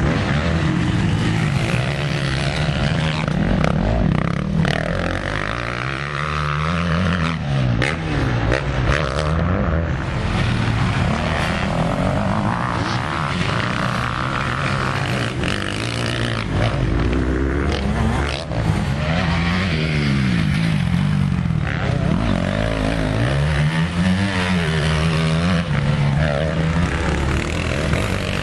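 Motocross dirt bike engines revving up and easing off again and again, the pitch rising and falling as the bikes ride the track, with more than one bike heard at once.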